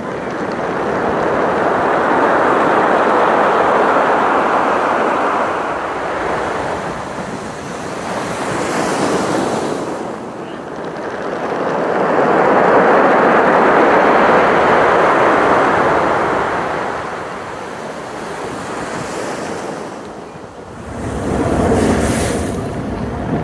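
Ocean surf surging up a beach of black basalt cobbles and drawing back, with the stones tumbling and clattering in each wave. Two big surges swell and fade, and another wave comes in near the end.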